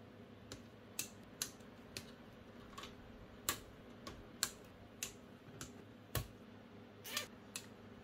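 Plastic zip ties being snipped with side cutters: a dozen or so sharp clicks at irregular intervals.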